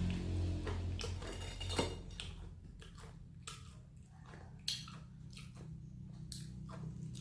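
Close-miked chewing of crispy fried chicken and rice: irregular crunches and wet mouth sounds, with two sharper crunches about two seconds in and near the middle.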